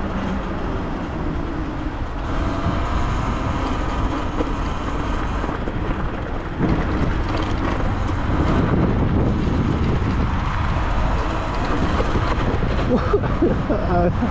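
Wind and tyre noise from riding a Talaria Sting electric dirt bike, a steady rushing rumble that gets louder about six and a half seconds in.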